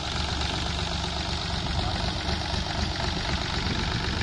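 Force Abhiman 4x4 27 HP mini tractor's diesel engine running steadily at low revs.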